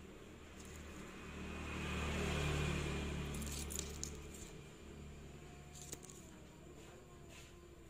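A low rumble that swells and fades over a few seconds, like a passing motor vehicle, with a few light clicks in the middle and again near the end.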